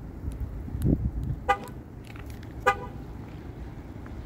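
Two short horn chirps about a second apart from the 2015 Ram 3500 pickup, the kind a key-fob lock or remote-start command sets off, over a steady low rumble.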